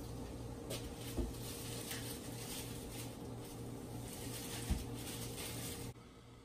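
Chicken and bok choy sizzling steadily inside a covered aluminium pot on the stove, over a low steady hum, with two dull thumps, about a second in and near the end.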